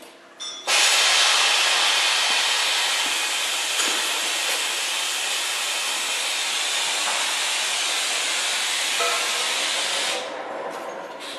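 Vacuum tube lifter drawing air through its suction head in a loud steady hiss. It starts suddenly about a second in and dies away near the end, once the gas cylinder has been lifted.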